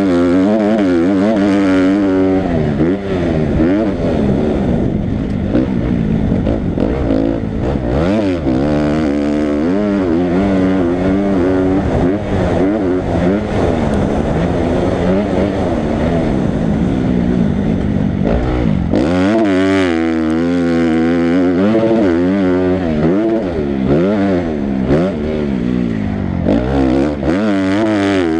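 Motocross dirt bike engine revving up and down over and over as the rider opens and closes the throttle and shifts through the gears, heard close from the bike itself.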